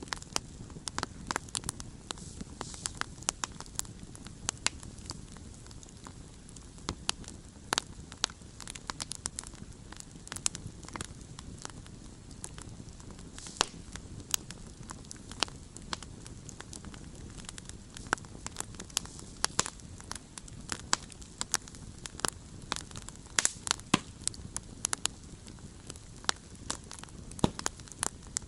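Campfire burning with irregular sharp crackles and pops of burning wood over a steady low rush of flame.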